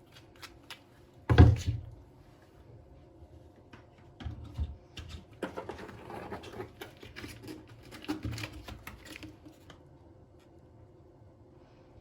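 Objects being handled in a small room: a sharp knock about a second in, scattered clicks, then several seconds of rustling and scraping.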